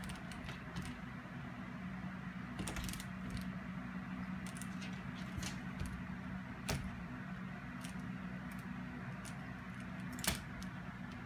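Scattered light clicks and rattles as cats bat and tug a door-hanger toy against a door, with one sharper knock about ten seconds in. A steady low hum runs underneath.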